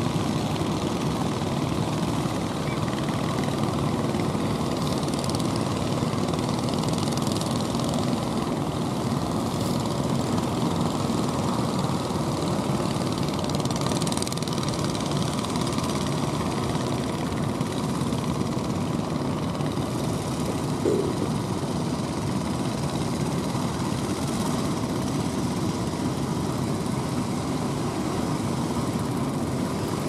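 Steady drone of an outrigger fishing boat's engine driving it through rough, breaking surf, blended with the rush of the waves. A short louder sound stands out about two-thirds of the way through.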